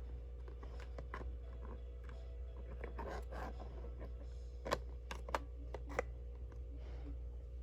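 Small objects and packaging being handled: a brief rustle about three seconds in, then three sharp clicks or taps, over a steady low hum.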